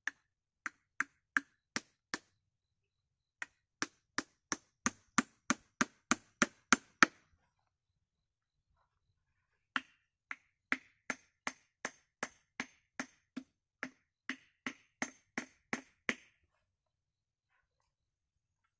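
Hatchet struck against wood, knocking flat wooden antler pieces into slots in a log: three runs of sharp knocks at about three a second, with short pauses between the runs.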